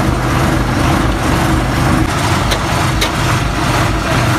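Ashok Leyland bus's diesel engine idling steadily, with two light clicks about two and a half and three seconds in.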